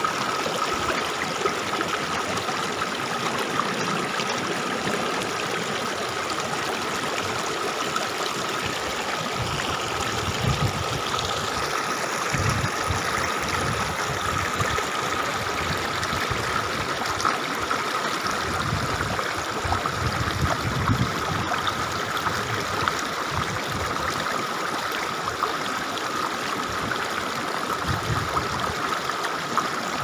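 Shallow stream running over rocks and pebbles: a steady rush of water.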